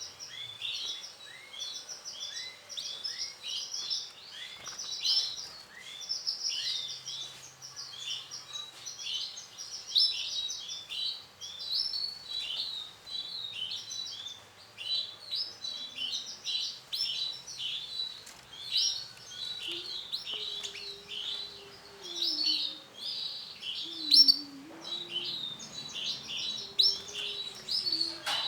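Male domestic canary singing a long, continuous song of rapid trills and chirps, with hardly a pause.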